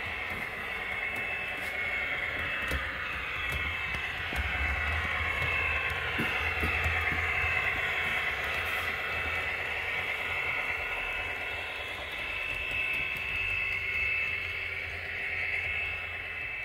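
HO-scale model diesel locomotive running on the layout's track: a steady whirring whine from its motor and running gear that sweeps down and back up in pitch, with scattered small clicks from the wheels on the rails.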